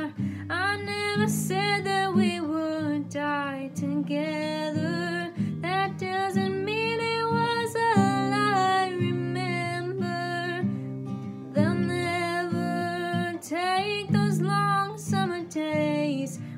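A woman singing solo with her own strummed acoustic guitar.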